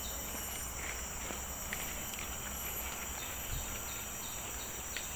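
Steady high-pitched drone of forest insects, with a few faint footsteps of hikers walking on the dirt trail.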